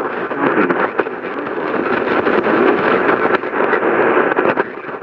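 Loud, steady static hiss from a radio receiver, with no speech coming through.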